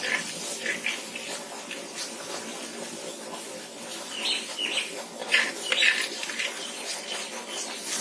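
A metal ladle scooping egg gravy out of a clay pot and onto a steel plate, with scrapes and light clinks, over short high chirps that come several times, loudest past the middle.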